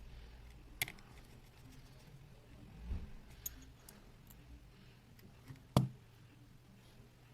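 A few sharp clicks and light taps of small repair tools and phone parts being handled. The loudest click comes about six seconds in, with another near the start and a dull thump about three seconds in.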